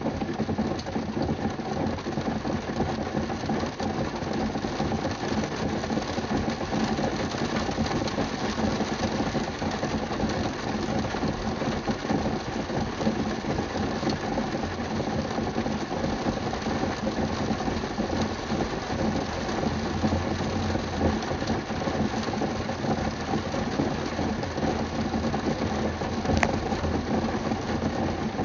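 Rain hitting a car's roof and windows, heard from inside the car: a dense, steady patter of drops.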